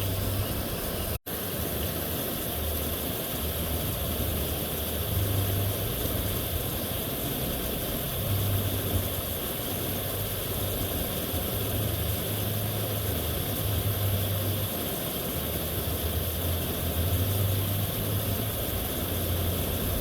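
Water pouring over a dam spillway: a steady rushing noise with a low rumble that swells and fades. The sound drops out for an instant about a second in.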